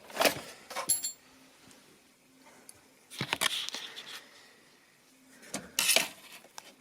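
Small screwdriver working at a tiny screw inside a PC: a couple of sharp metal clicks in the first second, then scraping and rubbing about three seconds in and again near the end.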